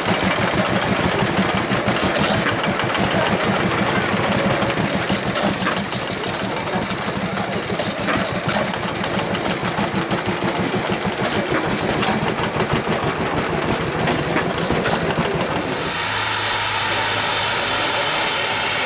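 Small vintage stationary engines running with a fast, even chugging. About three seconds before the end the sound changes abruptly to the steady hiss and low hum of a steam lorry, with water and steam spraying from beneath its cab.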